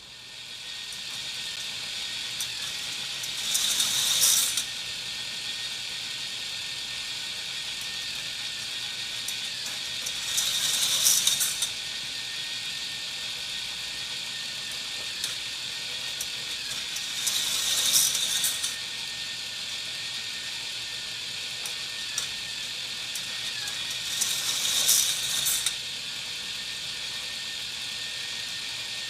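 Micro K'nex roller coaster running: the motorized chain lift makes a steady mechanical whirring clatter, and four times, about every seven seconds, a louder rattling rush of plastic cars running down the track rises over it for about a second.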